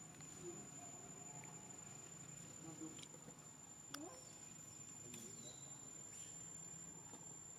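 Near silence: a faint steady high-pitched whine, with a few faint short chirps and a single click about four seconds in.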